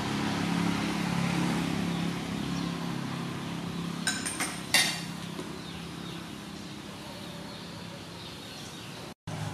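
Large pot of soup boiling, a steady hiss with a low hum beneath it, and a spoon clinking against a small ceramic bowl three times about four to five seconds in.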